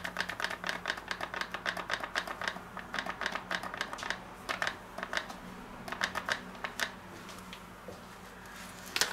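Flour poured in a thin trickle from a paper bag into a stainless steel bowl on a kitchen scale, the bag crackling in rapid, irregular ticks that thin out over the last few seconds. A low steady hum runs underneath.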